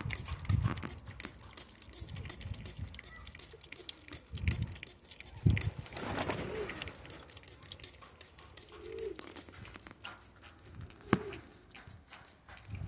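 Amazon parrots giving a few short, low calls, with a brief hiss of spray about six seconds in and scattered small clicks throughout.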